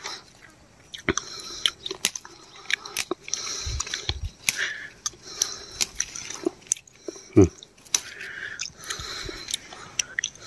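Leaves and twigs of chilli bushes rustling and crackling as they are handled and brushed through while chillies are picked, in scattered irregular clicks with a low thump about four seconds in.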